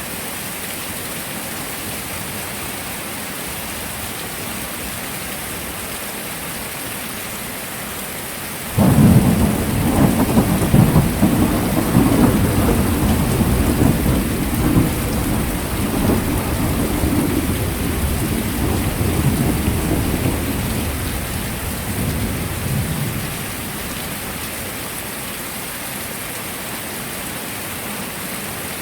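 Steady heavy rain. About nine seconds in, thunder breaks in suddenly with a loud low rumble that rolls on for about fourteen seconds, fading away before the rain is left alone again.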